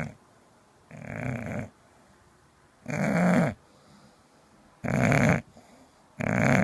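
A dog making a series of short, rough grunting or growling noises, each about half a second long, coming about once every second and a half, five in all.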